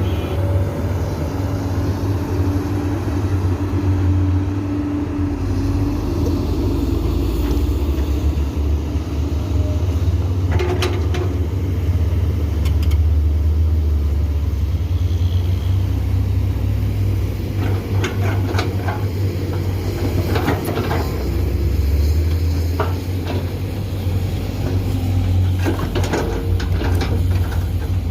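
Komatsu PC200 hydraulic excavator's diesel engine running steadily under working load, a deep continuous rumble, with short clusters of clanks and knocks now and then as the excavator digs and loads.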